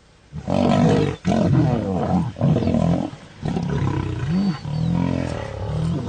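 Male lions fighting, giving loud, rough roaring calls that start about half a second in and run on with short breaks. It is a territorial fight to the death, with a group of males attacking a lone rival.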